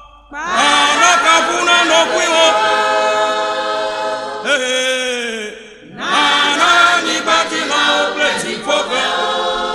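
A Ghanaian borborbor group's choir singing in Ewe: many voices together in two long phrases, with a short break about five and a half seconds in.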